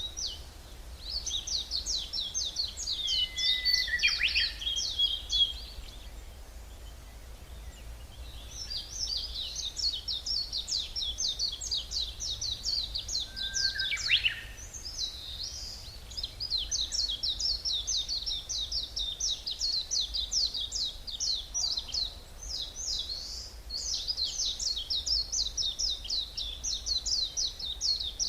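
Songbirds singing in a forest: long runs of fast, high-pitched trilling notes with a couple of short pauses, over a steady low background rumble.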